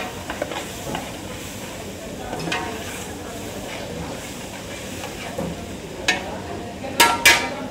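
A metal spoon clinking against metal as spices are spooned over raw chicken in a large aluminium pot: one light clink about six seconds in, then two sharp ringing clinks about a second later, over steady kitchen noise.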